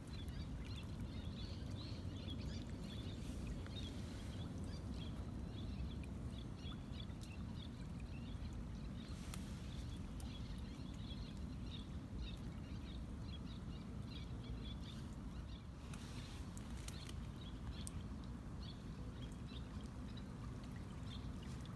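Outdoor ambience: a steady low rumble with small birds chirping high and fast over it, and a few faint ticks.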